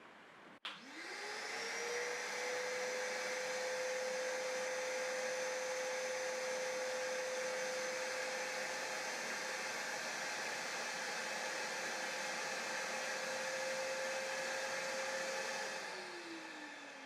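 Karcher WD3 wet and dry vacuum cleaner switched on with a click, its 1000-watt motor whining up to full speed and running steadily. Near the end it is switched off and winds down with a falling whine.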